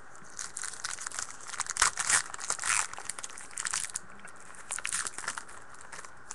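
A foil trading-card pack wrapper being torn open and crinkled. There are two spells of crackling rustle, the second shorter and about five seconds in.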